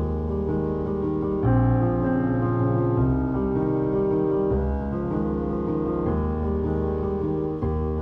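Background music: slow, sustained piano chords over a low bass, the chord changing about every second and a half.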